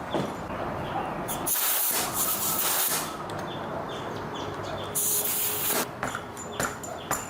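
Two bursts of pressurised spray hissing, the first about a second and a half long and the second under a second, with light clicks and knocks between them.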